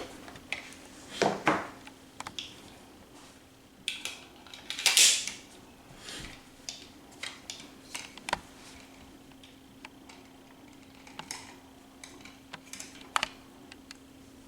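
Scattered metallic clicks and short handling rattles from a Tisas 1911A1 .45 pistol being worked and dry-fired while its trigger pull is measured with a trigger pull gauge. The clicks are uneven, with one sharp one about eight seconds in, over a faint steady hum.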